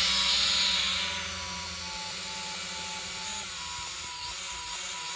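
SJRC Z5 quadcopter's brushed motors and propellers buzzing in flight, with a steady whine that shifts slightly in pitch. The sound drops in level about a second in and then holds steady.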